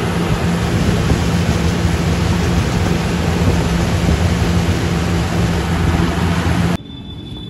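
Tractor engine running steadily under way, a constant low hum under heavy road and wind noise. About a second before the end it cuts off abruptly to a much quieter background with a faint high whine.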